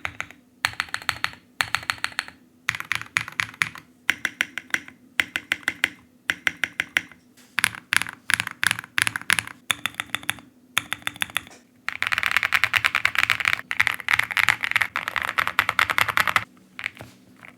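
Typing on a custom mechanical keyboard (Jelly Epoch kit with Creamsicle switches, Durock v2 stabilizers and Maxkey keycaps): quick runs of key clacks broken by short pauses, then a faster, continuous stretch of typing about twelve seconds in that stops shortly before the end.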